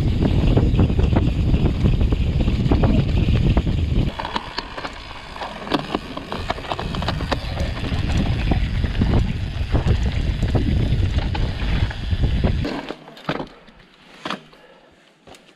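Wind buffeting the microphone on a fast mountain-bike descent, with the bike rattling and knocking over a bumpy grass trail. About thirteen seconds in the rumble drops away as the bike slows, leaving scattered clicks and rattles.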